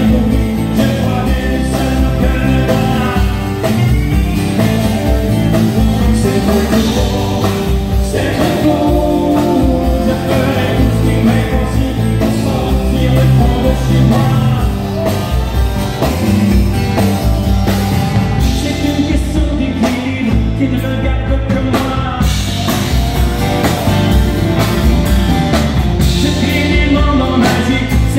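Live country band playing at a steady loud level: strummed acoustic guitar, electric guitars and drums, with a man singing lead.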